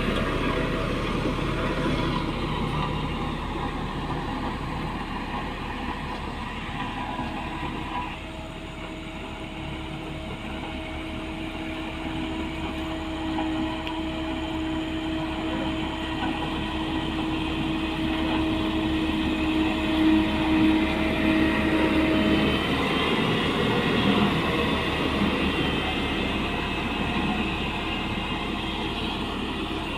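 Heavy diesel construction machinery running steadily with a dense rumble. A steady hum joins in about eight seconds in and stops about twenty-two seconds in.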